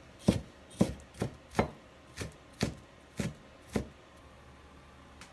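Chinese cleaver chopping on a wooden cutting board: about eight sharp knocks, roughly two a second, stopping about four seconds in.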